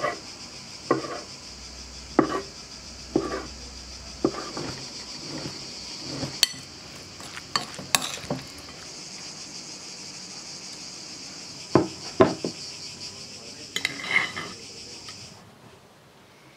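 A knife chopping on a wooden cutting board, one cut about every second, then a few sharper clinks of utensils. A steady high insect drone runs beneath and stops near the end.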